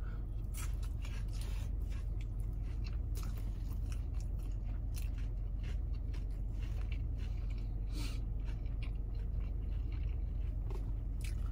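A person taking a bite of a burger and chewing it with closed mouth, giving soft irregular mouth clicks and crunches. A steady low hum runs underneath.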